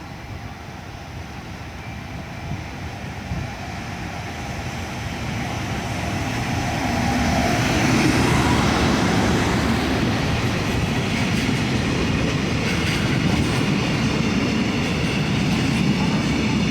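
Freight train hauled by a JR Freight EF210 electric locomotive passing through a station. The rumble builds as it approaches, is loudest about eight seconds in, then holds steady as the wagons roll by.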